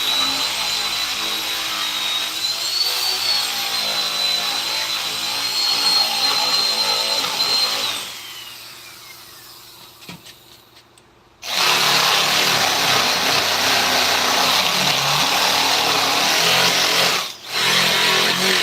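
Electric power tool working wood, with a steady high motor whine. About eight seconds in it is switched off and winds down with a falling whine. After a couple of seconds of near quiet it starts again abruptly, loud and rough, with two brief breaks near the end.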